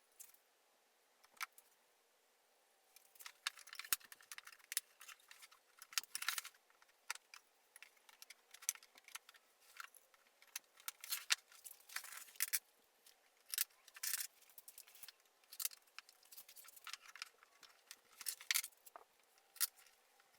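Irregular light clicks and rattles of hard pieces being handled and knocked together, as plexiglass panels are fitted into a cherry wood display box.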